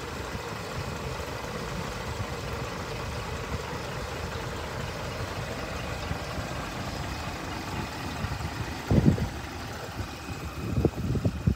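Scania 124 G truck's straight-six diesel engine idling steadily. A few short, loud, low thuds come about nine seconds in and again near the end.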